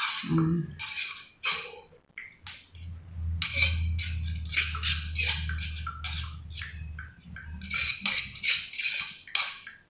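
Cucumber salad being scraped by hand out of an earthenware mortar onto a ceramic plate: a string of short scrapes, clicks and wet rustles as the pieces slide out and the mortar knocks against the plate, with a low hum under it for a few seconds in the middle.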